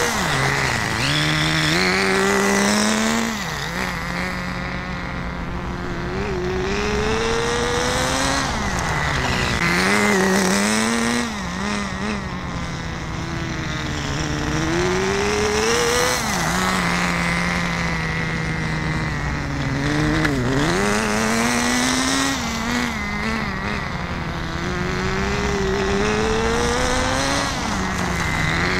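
Small glow (nitro) engine of a 1/10 Kyosho Pure Ten GP Spider RC car running as the car is driven, its pitch rising with throttle and dropping back over and over. This is a break-in run, with the engine being revved a little higher step by step.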